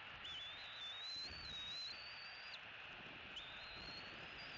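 Bald eagle nestling giving thin, high whistling begging calls while being fed. There are two long whines of about two seconds each that rise slightly in pitch, the second beginning past the midpoint, over a steady faint hiss.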